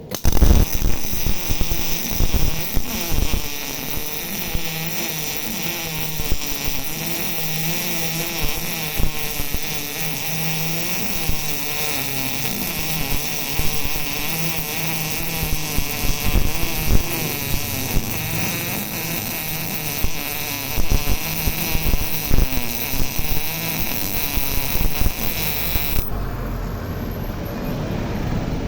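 MIG welding arc from a 180 A MIG welder, a steady crackling buzz that starts abruptly and cuts off suddenly near the end as the torch trigger is released.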